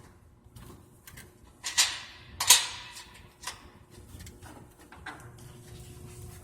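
Parts of a riding mower's discharge-chute safety switch assembly being handled and reseated: a few sharp clacks of plastic and metal, the loudest about two and a half seconds in.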